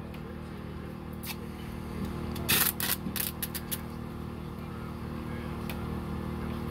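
A steady low mechanical hum with scattered sharp clicks and a short clatter of clicks about two and a half to three and a half seconds in.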